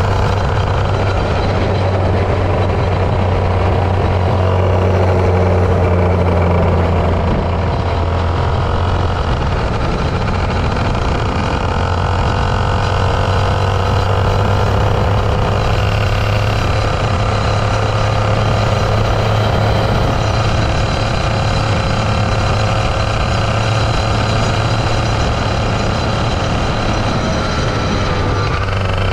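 Go-kart engine running hard at racing speed, the revs rising and falling as the kart goes through the corners, dropping again near the end.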